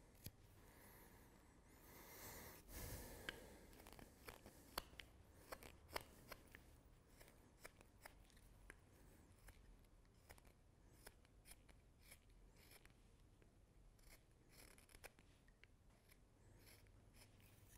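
Straight carving knife paring thin shavings from a wooden spoon blank: a run of quiet, irregular crisp snicks as each cut bites and releases. A brief rustle comes about two to three seconds in.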